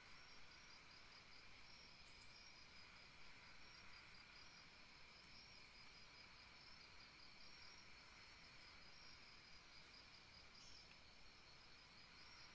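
Near silence with faint, steady, high-pitched insect chirping, like crickets.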